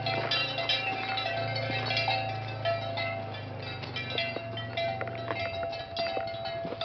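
Bells on the walking herd clanking and ringing irregularly, many overlapping strikes with a held ringing note that comes and goes, over a low steady hum.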